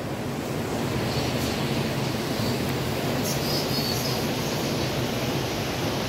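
Steady rush of the Düden waterfall's fast-flowing water, with a few faint, short, high chirps above it about a second and a half in and again around the middle.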